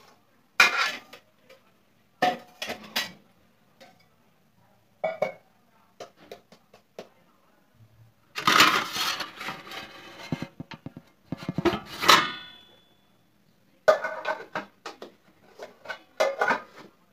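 Metal kitchen vessels clattering: bowls, pots and lids knocked together and set down on a stone counter in a string of separate clanks. There is a longer rattling stretch about halfway through, ending in a short metallic ring.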